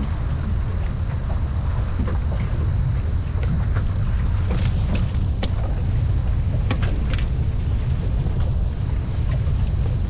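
Strong wind buffeting the microphone: a loud, steady low rumble, with scattered faint clicks and taps.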